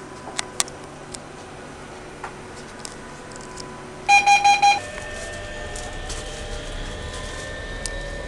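Metro train standing at a platform with a steady hum and a few light clicks. About four seconds in comes a short, rapid run of loud door-closing warning beeps. Then the electric traction motors start, with rising whines over a low rumble, as the train pulls away.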